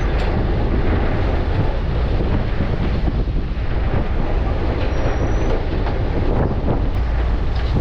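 Steady low rumble and rushing noise of a fishing boat at sea in strong wind, with wind buffeting the microphone and a few faint knocks.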